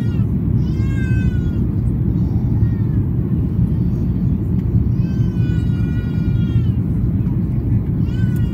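Steady low rumble of a Boeing 737-800 cabin in flight, with a baby or small child crying over it in high-pitched wails: short cries at the start and about a second in, a longer drawn-out wail about five seconds in, and another near the end.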